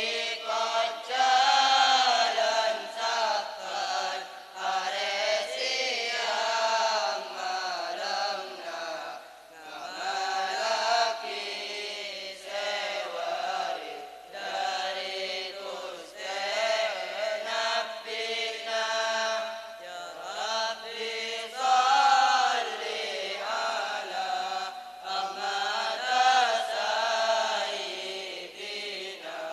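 A group of boys chanting a Madurese syi'ir, a sung devotional verse, in unison and without instruments, in phrases of a second or two.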